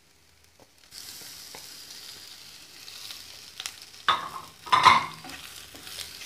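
Spiced onion and chopped boiled-egg filling sizzling in a non-stick frying pan, the sizzle starting about a second in. A spatula stirs and scrapes against the pan, with two louder scrapes about four and five seconds in.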